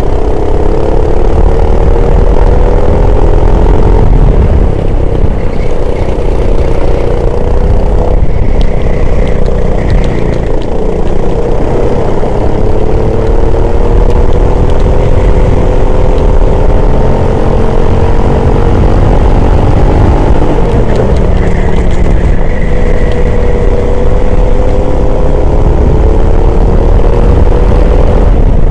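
Racing engine running hard under load. Its pitch climbs slowly over long stretches and drops sharply about eight and twenty seconds in, over a heavy constant rumble of wind and road noise.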